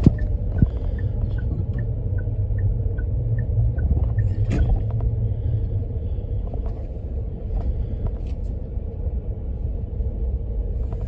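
Car driving: a steady low rumble of engine and road noise, with a faint regular ticking about two and a half times a second over the first half.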